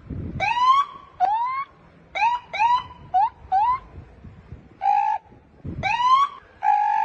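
A man imitating a police siren with his mouth: seven short rising whoops, each about half a second long, then two held flat honks in the second half.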